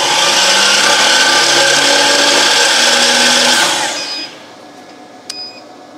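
Electric miter saw motor spinning up and running free for about three and a half seconds, then winding down with falling pitch as the trigger is released. It runs from an inverter already carrying about 2000 W of heaters, whose output sags to 85 V, so the saw sounds less powerful than it does on its own.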